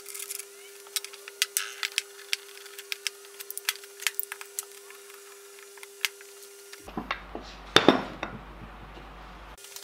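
Cast metal parts of a Woodfast lathe tailstock being handled and fitted together on a wooden bench: scattered small metal clicks and taps over a faint steady hum, with a busier clatter and one louder knock near the end.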